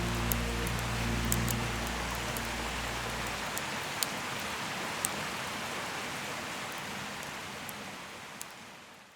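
Wood fire crackling: a steady hiss with scattered sharp pops. Soft sustained music notes fade out about three seconds in, and the whole sound fades away at the end.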